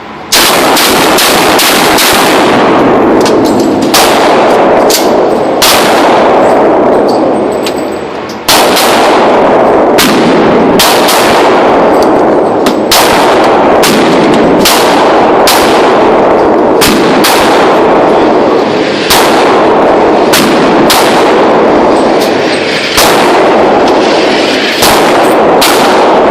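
Gunfire: dozens of shots at irregular intervals, often several in quick succession, each with a long ringing tail. There is a short pause about eight seconds in.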